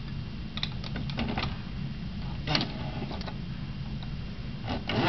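Scattered light clicks and taps of a hand handling a 1:18-scale model car on a wooden tabletop, the loudest about two and a half seconds in, over a steady low hum.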